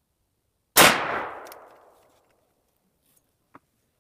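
A single gunshot from a Chiappa M6 X-Caliber survival rifle, a handgun cartridge fired through a conversion sleeve in its 12-gauge barrel. It rings out about a second in and echoes away over roughly a second. A faint click follows near the end.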